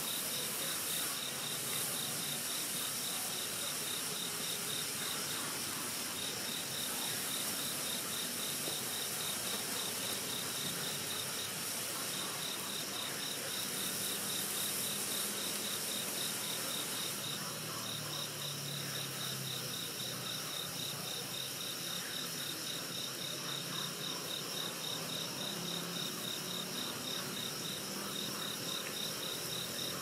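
Crickets chirping in a steady rhythm, about four chirps a second with a few short pauses, over a soft high hiss that fades about two-thirds of the way through.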